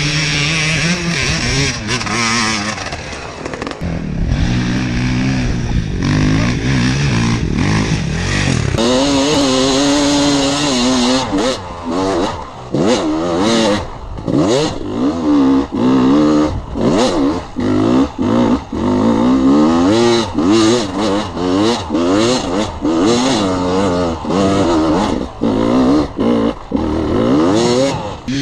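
Dirt bike engine revving hard under load on a steep, rocky hill climb, the pitch rising and falling as the throttle is worked. From about twelve seconds in, the revs keep dipping and surging again in quick blips.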